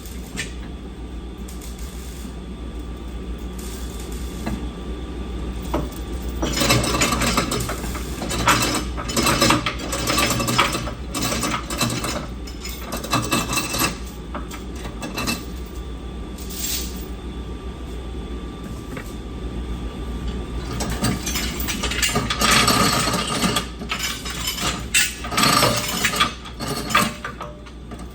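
Hand tools and metal parts clinking and rattling during car repair work, in two busy spells, over a steady low hum.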